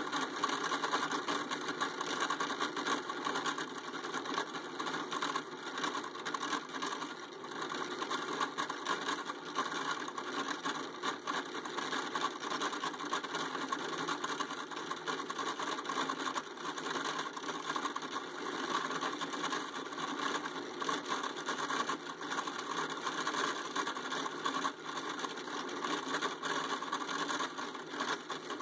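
Delta drill press turning a boring head whose carbide-insert boring bar is cutting inside a hole in steel, a steady fast rattling with a bit of chatter from the cutter.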